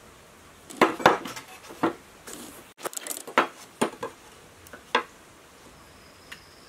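Old metal sword blade and its grip piece clinking and knocking against each other and a wooden tabletop as they are handled and fitted together: a dozen or so short, sharp clinks and taps, loudest and closest together in the first half.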